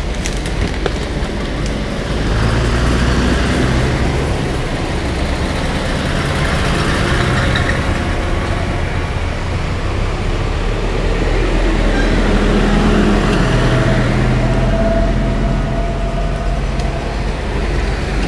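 Farm tractors driving past one after another, their engines running steadily, louder from about two seconds in as the next tractors close in.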